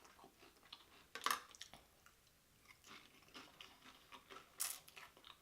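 Faint chewing and crunching of a mouthful of loaded nachos, with scattered wet mouth clicks and a few louder crunches about a second in and near the end.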